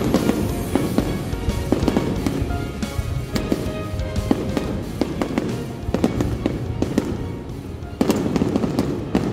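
Festival fireworks going off in an irregular run of bangs and crackles, with music underneath. The bangs get abruptly louder about eight seconds in.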